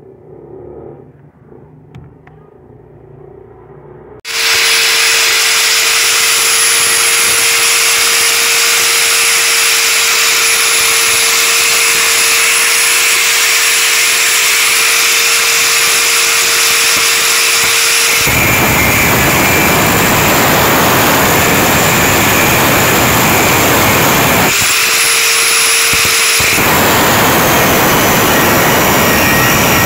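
A Bosch GWS 9-125 S angle grinder starts suddenly about four seconds in and runs free with a steady whine. A little past halfway its disc bites into truck leaf-spring steel, turning the sound into a harsher grinding noise. The disc is lifted off briefly, giving back the free-running whine, then it grinds again until the end.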